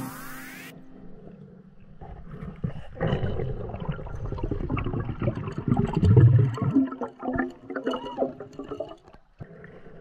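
Muffled underwater noise heard through an action camera's waterproof housing: rumbling water movement and bubbling as the diver moves along the lake bottom. It swells about two seconds in and thins out near the end.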